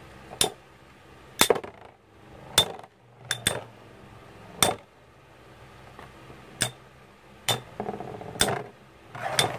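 Two Infinity Nado metal battle tops spinning in a plastic stadium and clashing together, about ten sharp metallic clinks at irregular intervals over a faint steady hum.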